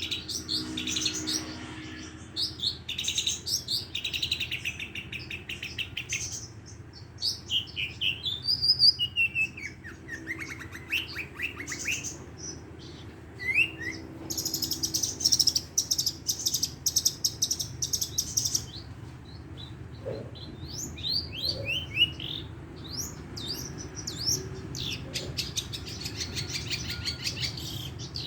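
Long-tailed shrike (cendet) singing a varied song of quick chirps and fast rolling trills, broken by short pauses, with mimicked phrases of sparrow and lovebird calls woven in. The longest, densest trill comes about halfway through.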